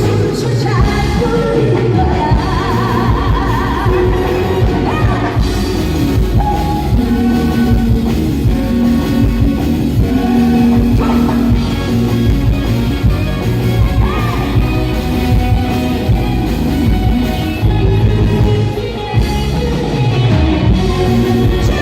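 A singer's amplified voice over loud backing music: a live stage performance of a Korean song.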